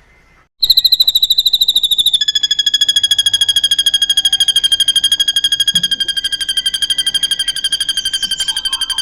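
Drongo (srigunting) giving one long, very fast buzzing trill with a high pitch that slowly falls. It starts about half a second in, and a lower second tone joins about two seconds later.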